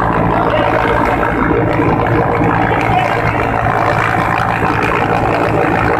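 Helicopter engine and rotor noise heard from inside the cabin at an open door: a loud, steady drone with a low hum under it.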